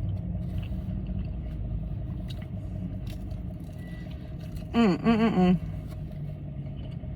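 Steady low rumble of a car heard from inside the cabin, with the engine running. About five seconds in, a person gives one short voiced sound without words.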